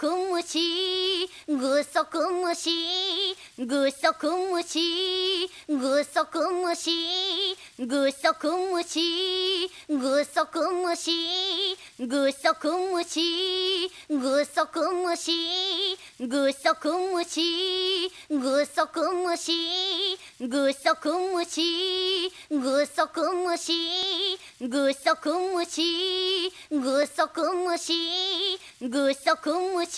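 An anime girl's singing voice repeating the short chanted phrase "gusoku mushi, gusoku mushi" ("giant isopod"), the same line coming round about every two seconds as a loop.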